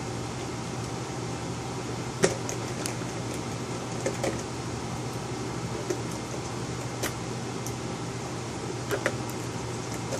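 Scattered sharp clicks and taps of a Phillips screwdriver and small screws on the plastic bottom cover of an Itronix IX270 rugged laptop as the cover screws are driven back in, the loudest about two seconds in, over a steady low hum like a fan.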